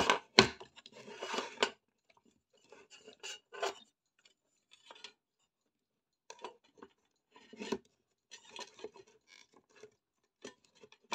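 Handling noise from the metal chassis and front panel of an old Unitra Zatra power supply being taken apart: a couple of sharp knocks and a scrape in the first two seconds, then scattered scrapes, rubs and small clicks as the parts are worked loose.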